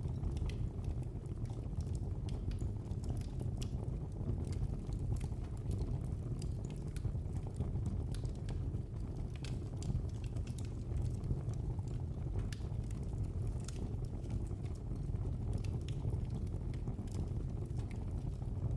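Fire in a fireplace crackling, with frequent scattered sharp pops and snaps over a steady low rumble of the flames.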